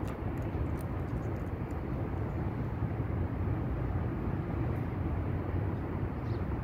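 Steady low rumble of outdoor background noise, with a few faint clicks near the start.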